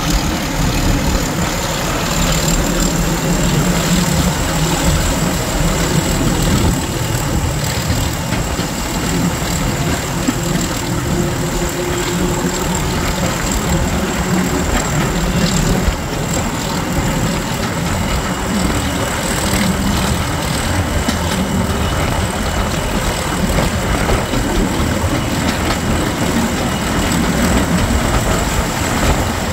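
Class 31 diesel-electric locomotive's English Electric 12SVT engine running steadily as the train moves, with a steady high whistle over the engine's low rumble and the clatter of the train under way.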